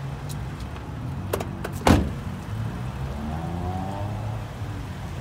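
A car door being shut: a couple of light clicks, then one solid thump about two seconds in, on a 2013 Toyota Highlander's driver's door.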